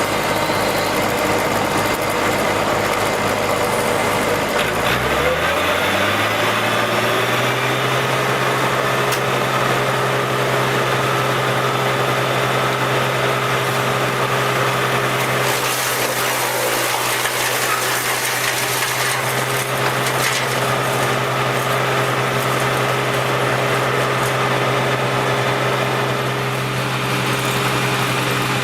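An engine running; about five seconds in it speeds up, the pitch rising, and then it runs steadily at the higher speed.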